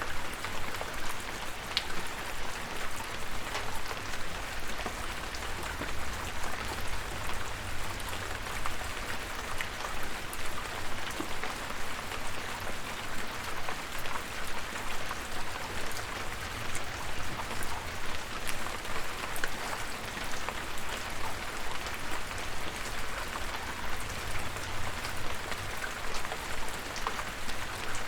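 Steady rain falling, a constant hiss with many small drop ticks, and a low rumble beneath.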